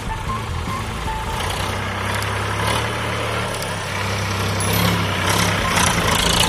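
VST Viraaj 9045 DI tractor's diesel engine running steadily as the tractor drives past, growing louder as it comes close.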